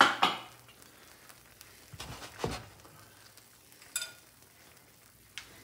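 Lemon chicken sauce simmering in a frying pan with a faint sizzle, broken by a few short knocks and a clink of kitchen utensils, the loudest knock right at the start.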